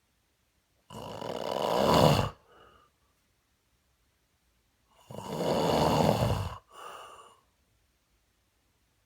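Snoring: two long snores about four seconds apart, each followed by a shorter, softer breath.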